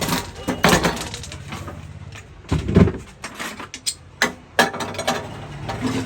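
A series of irregular sharp knocks and clinks, the loudest nearly three seconds in, over a low steady hum.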